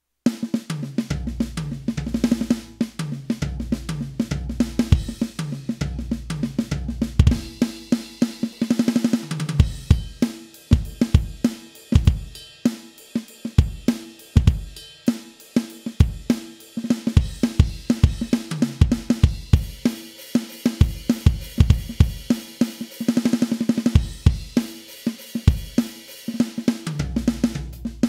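Electronic drum kit played in a steady beat, its module's sampled kick, snare, hi-hats and cymbals heard directly, with the cymbals turned down low in the mix: an example of how unnatural that sounds.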